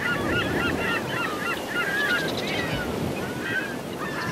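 A flock of birds calling, many short overlapping calls, over a steady rush of wind and water.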